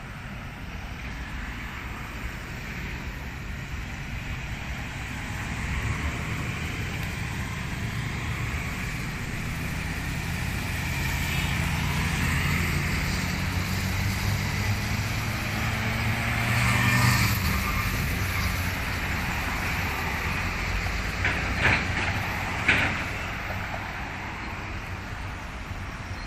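A motorcade of vehicles driving past, with engines and tyres building to a peak about two-thirds of the way through and then easing off; no sirens sound. A few short, sharp sounds come near the end.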